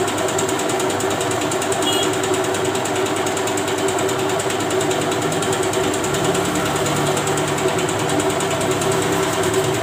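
A steady mechanical drone of a running engine or motor with a constant hum. A lower hum joins it for a few seconds after the middle.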